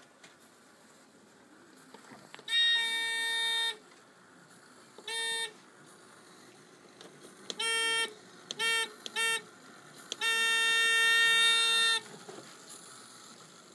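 Homemade doorbell's electric buzzer sounding a steady, buzzy tone in six presses: a one-second buzz, a short one, three short ones close together, then a long buzz of nearly two seconds.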